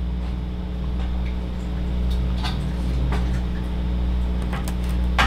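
Steady low hum with a few scattered light clicks of laptop keys being pressed.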